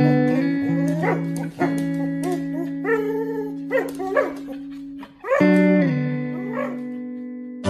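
A husky makes short, bending vocal calls in play while tugging a rope toy, over background music with sustained notes.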